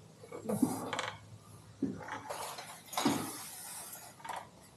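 Footsteps knocking on a steep wooden ladder-stair as someone climbs it, a series of irregular knocks with small creaks and clatters.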